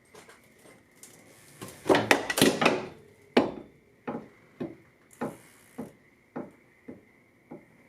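A burst of clattering, then a sharp knock followed by a run of evenly spaced knocks, a little over one a second, that grow fainter.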